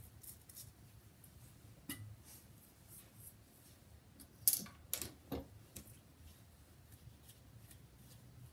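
Faint handling sounds of hair being worked by hand into twists: light rustling with a few small clicks and taps, one about two seconds in and three close together near the middle.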